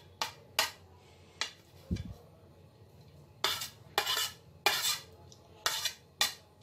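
A metal spoon clinking and scraping against a ceramic plate as chopped onion, chilli and coriander are pushed off it into a glass bowl. A few short taps come first, then from about halfway a run of longer scrapes, roughly two a second.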